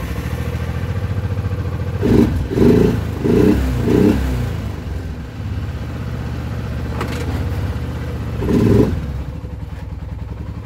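Arctic Cat quad's engine running just after starting on its freshly cleaned carburetor, revved in four quick surges about two seconds in and once more near the end.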